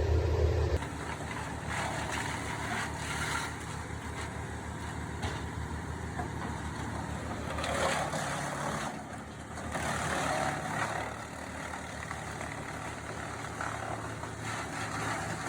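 Wood chipper's engine running steadily, with louder rushes of noise a few times, around two, eight and ten seconds in.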